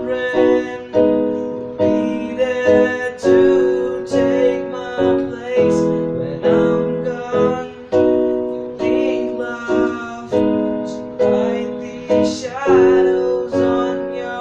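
Piano playing chords, each struck and left to ring and fade, in a steady rhythm.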